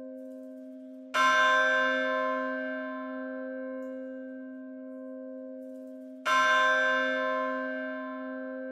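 A church bell tolled twice, about five seconds apart. Each stroke rings on and slowly fades, and the hum of the previous stroke still sounds between them.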